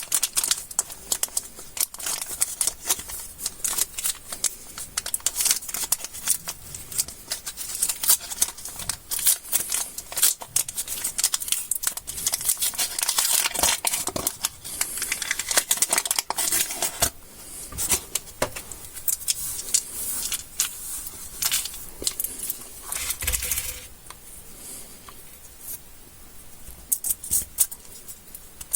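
Plastic candy wrappers and packaging being crinkled and torn open by hand: a dense run of crackles and small sharp clicks, quieter for a few seconds near the end.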